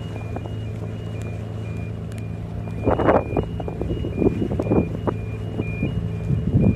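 A boat engine running steadily under a faint electronic beeping that alternates between two pitches several times a second. From about three seconds in, several louder rushing bursts rise over it.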